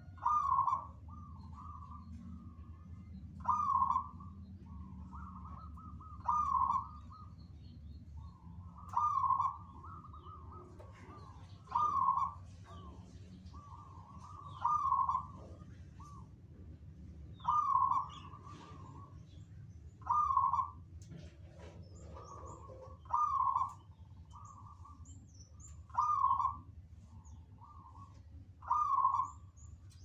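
Zebra doves (perkutut) cooing. A loud coo phrase comes about every three seconds, eleven in all, and quieter coos from other birds answer in between. Faint high chirps of small birds sound above them.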